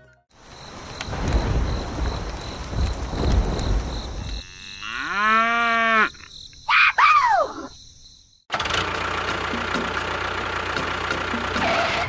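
A cow moos once, one long call of about a second and a half, near the middle. Before it there is a low rumbling noise; after it come short sweeping whistle-like tones and then a steady noise with faint regular ticks.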